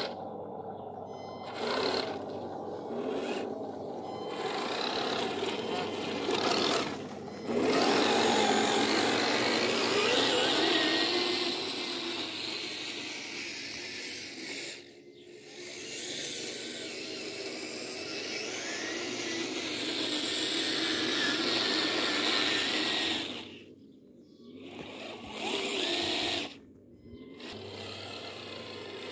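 The electric drive motors and gearboxes of a 1/16-scale RC Stuart light tank whirring as it drives. The sound drops away briefly a few times as it stops and starts.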